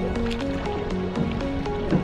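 Background music: a melody of short stepping notes over a steady beat.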